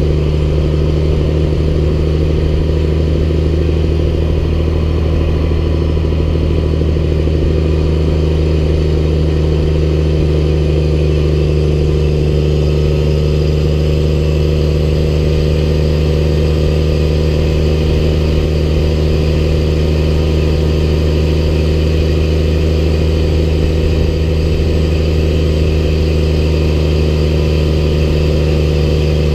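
Snowplow truck's diesel engine running steadily under load while plowing, with a constant rush of snow being thrown off the plow.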